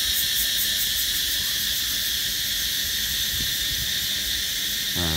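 Steady, high-pitched insect chorus, continuous without a break.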